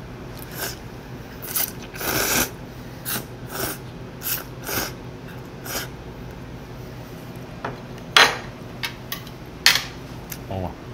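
Tableware clicking and clinking on a table during a meal: about a dozen separate light knocks of chopsticks and dishes, the loudest about eight seconds in.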